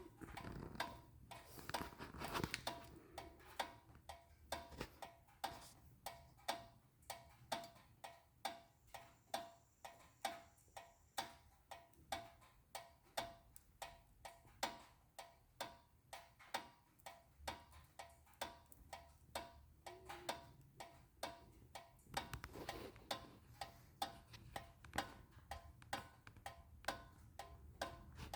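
Rhythmic clicking from a 2012 Honda Accord's rear brake area with the car switched off, a little under two clicks a second, steady and even, each click with a faint ringing tone. It is an unexplained rear brake noise whose cause is unknown.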